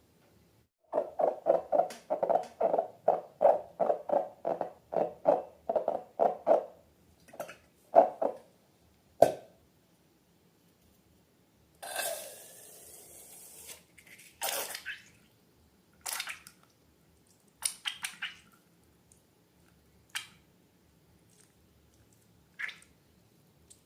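Slime being squeezed and pressed by hand: a run of quick squelches, about three or four a second, for several seconds. After it come a few single squelches, a short hiss, and scattered small clicks.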